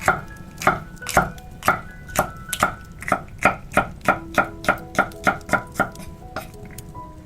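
Kitchen knife chopping food on a cutting board: about eighteen sharp knocks that quicken to about three a second midway and stop shortly before the end.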